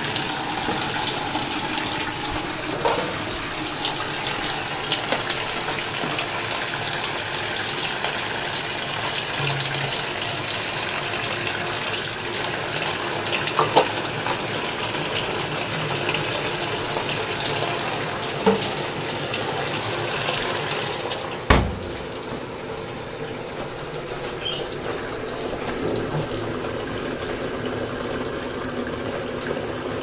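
AQUA AQW-GS70H top-loading washing machine filling its tub with water: a steady rush of inflowing water. A single thump about two-thirds of the way through, after which the rush is a little quieter.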